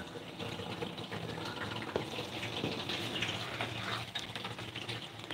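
Water running from a kitchen tap as canned beans are rinsed, with a few faint knocks.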